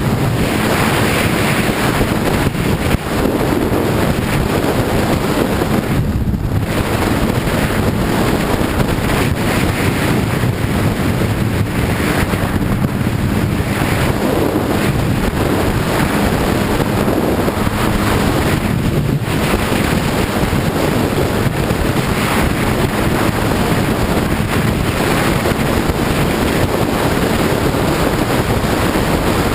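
Heavy wind noise buffeting the microphone on a moving sport motorcycle, with the bike's engine running steadily underneath; the rush dips briefly twice.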